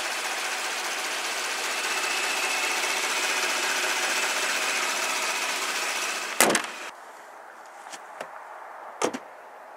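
Hyundai Genesis 3.8-litre direct-injected V6 idling with the hood open, a steady, very quiet hum with a faint high whine. About six seconds in there is a sharp thump, after which it goes much quieter, with a few faint clicks.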